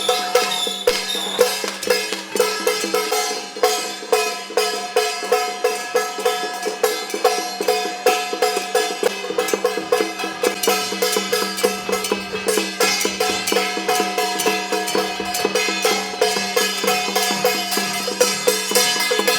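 Traditional Taiwanese temple-procession music. A held, pitched melody line runs over a fast, even beat of wood block and drum strikes.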